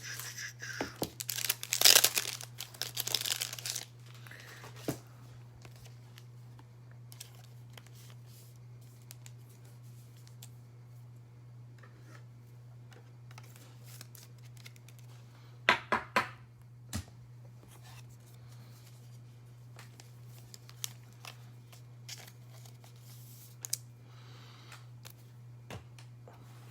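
Crinkling and tearing of a trading-card pack's foil wrapper for about three seconds near the start. A quick cluster of three sharp clicks comes about two-thirds of the way through, over a steady low hum.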